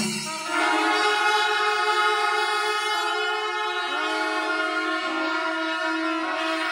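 The wind section of a Kerala pandi melam: kuzhal double-reed pipes and curved kombu horns holding a sustained, reedy, horn-like chord. From about four seconds in, the held notes dip and scoop in pitch every second or so.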